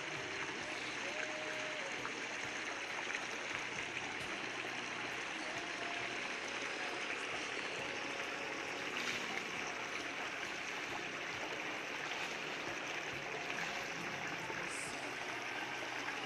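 A steady rushing hiss of outdoor noise that stays even throughout, with a few faint, brief tones drifting through now and then.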